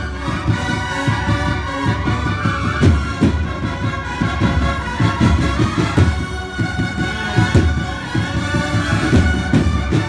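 Cornet and drum band (banda de cornetas y tambores) playing a Holy Week processional march: cornets sounding held chords over steady drum beats.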